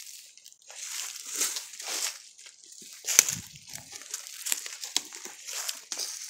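Footsteps crunching through deep dry leaf litter, a crunch every half second to second as people walk. About three seconds in comes one louder, sharper crack with a low thump.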